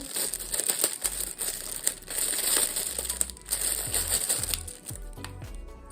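Plastic packaging crinkling and rustling as it is handled, with many small sharp crackles.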